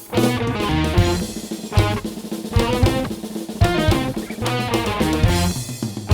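Rock fusion band playing, with a full drum kit (bass drum and snare) beating steadily under guitars.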